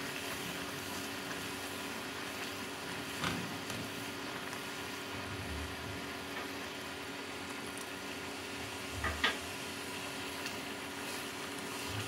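Caramel syrup of melted sugar and water with cinnamon pieces, boiling in a saucepan with a steady bubbling hiss. A slotted wooden spatula clicks against the pan twice, about 3 seconds in and near 9 seconds.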